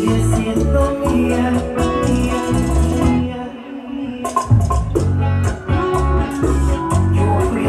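Bachata music: plucked guitar lines over bass and percussion. About three seconds in, the bass and percussion drop out for roughly a second in a short break, then the full band comes back in.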